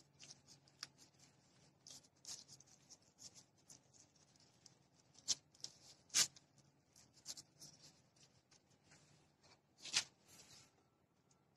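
Plastic-gloved hand pressing and spreading sticky rice over a nori sheet on a bamboo sushi mat: faint, irregular crinkles, pats and clicks, the sharpest about six and ten seconds in.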